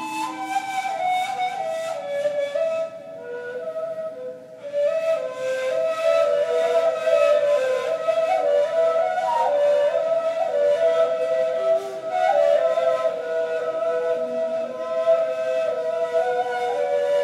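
Two neys, end-blown reed flutes, playing an improvised modal melody together: long held notes stepping from pitch to pitch, at times two lines at once. The music goes briefly softer about three to four seconds in.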